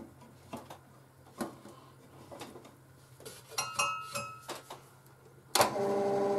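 Light clicks and taps as the scroll saw's blade clamp and tension are handled. About five and a half seconds in, the Clarke Woodworker scroll saw is switched on and runs with a steady hum.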